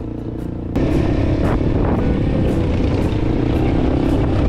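A car driving slowly on a dirt track: engine and tyre noise that comes in suddenly louder about a second in. Background music with a light steady beat plays underneath.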